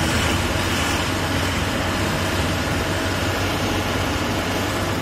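Truck engine running steadily with a low hum, heard from inside the cab while the truck drives along.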